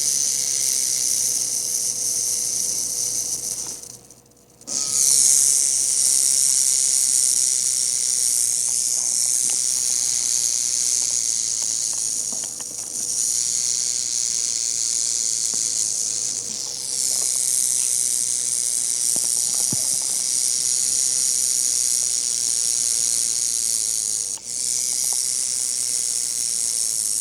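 Massasauga rattlesnake rattling its tail: a continuous high-pitched buzz that stops briefly about four seconds in, then resumes, with short dips twice later.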